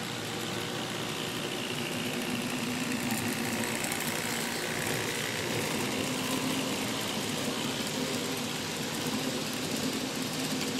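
N scale model freight train running along the track, with the steady mechanical whir of the locomotive's small motor and its rolling wheels.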